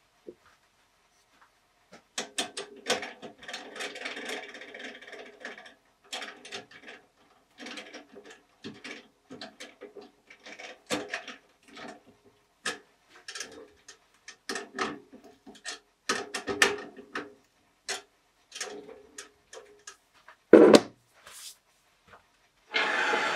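Irregular metallic clicks, knocks and clatter of a lathe's four-jaw chuck and wooden workpiece being handled while the lathe is stopped, as a turned piece is swapped in the chuck. The sound is busiest between about two and six seconds in, with a single heavy knock near the end.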